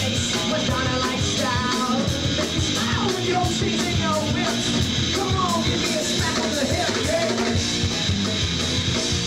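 Live rock band playing loud, with electric guitar and drums in a steady, unbroken stretch of a song, and a pitch-bending lead line over it.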